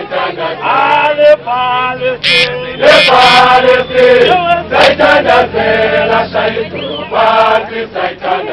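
A crowd of protesters singing a chanted protest song together, many voices at once.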